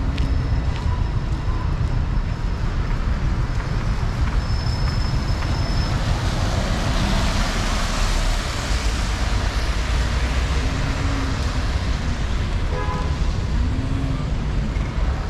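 Road traffic: a steady low engine rumble with tyre hiss, swelling around the middle as a vehicle goes by.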